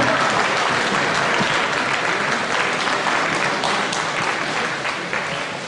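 Large crowd applauding, many hands clapping at once, slowly dying down.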